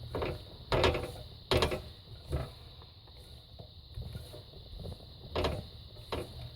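Cooking utensil scraping and knocking against a frying pan as sliced mushrooms in olive oil are stirred, in a handful of separate strokes: several in the first couple of seconds and two more near the end.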